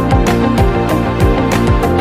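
Background music with a fast, steady beat of deep drum thumps.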